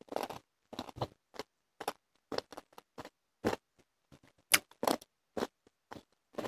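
Close-up chewing of a crisp piece of pickled carrot: a string of short, irregular crunches. The crunch shows the fish-sauce pickle has stayed very crisp.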